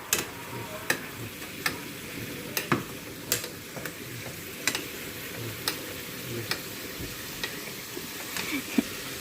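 Sliced pork belly sizzling in a frying pan as it is stir-fried, with a utensil clicking and scraping against the pan about once a second.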